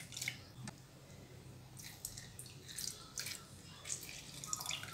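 Lemon juice dripping and splashing into a pot of water as a lemon is squeezed by hand, in faint, scattered drips.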